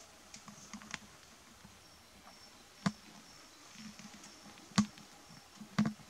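Three sharp knocks over faint room tone, the first about three seconds in, the loudest a couple of seconds later, and the last a quick double near the end, with a few faint clicks in the first second.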